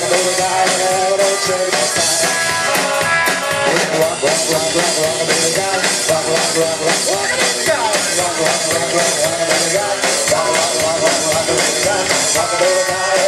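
Rock and roll band playing: a man singing over electric guitar and a drum kit.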